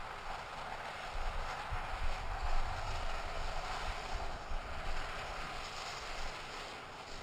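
Large fire extinguisher punctured by a rifle bullet, venting: a steady hissing rush of escaping pressurised contents, with uneven low rumbles underneath.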